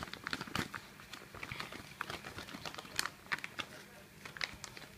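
Faint, irregular crinkling and scattered small clicks of hands at work, getting moist shisha tobacco onto a spoon.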